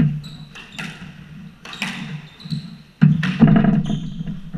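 Squash rally: sharp hits of the ball off racquets and walls about once a second, echoing in the court, with sneakers squeaking and footsteps thudding on the wooden floor.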